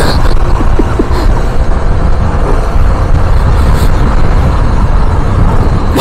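Steady loud wind rumble on the microphone while riding a Piaggio Liberty 50 scooter at road speed, mixed with the scooter's engine and tyre noise.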